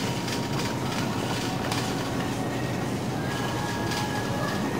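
Steady supermarket background noise: an even low rumble with a thin steady tone and a few light clicks.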